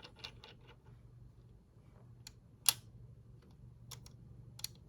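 Small plastic clicks from a 3D-printed flintlock frizzen being moved open and shut against its leaf spring. A few light scattered clicks, with one sharper snap about two and a half seconds in and another right at the end.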